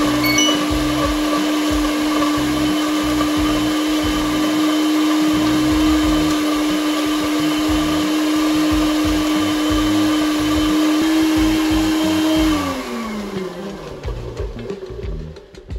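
Personal bullet-style blender running steadily, its cup pressed down on the motor base while it blends a thick smoothie. About twelve seconds in, the cup is released and the motor winds down with a falling pitch.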